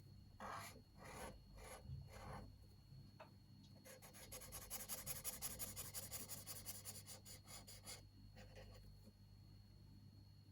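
Faint sound of a chisel-tip marker colouring on paper: a few separate strokes, then about four seconds of fast back-and-forth scribbling, then lighter strokes near the end.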